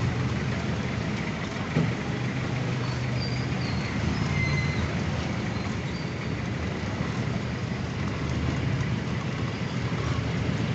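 Steady street traffic noise with a low engine hum, heard from a moving bicycle sidecar, with a single knock about two seconds in.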